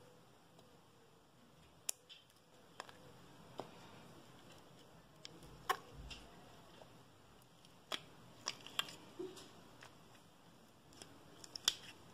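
Fingers working slime out of a clear plastic palette case: scattered sharp clicks and small pops, about eight of them at irregular times, as the slime is pressed and pulled against the plastic.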